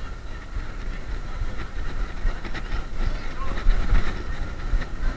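Wind buffeting the microphone and the low rumble of a Xiaomi M365 electric scooter rolling over tarmac, uneven and continuous, with a faint steady whine above it.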